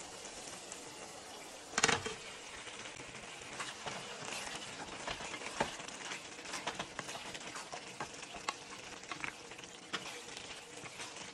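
Pan of simmering curry sauce with a steady sizzling hiss; chicken pieces are tipped in with a thump about two seconds in, then stirred through the sauce with a wooden spoon, giving scattered small clicks and knocks.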